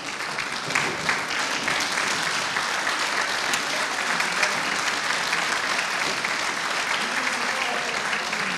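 Audience applauding, dense steady clapping that grows louder about a second in.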